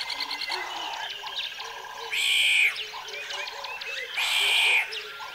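A chorus of animal calls: rapid repeated chirps and croaking calls from birds and frogs. Two louder hissing bursts come about two seconds apart.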